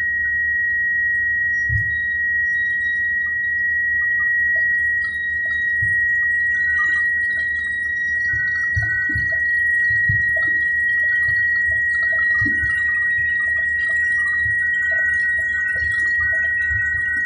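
Helicopter in flight heard from inside the cabin: a loud, steady high-pitched whine over a low rumble with irregular low thumps.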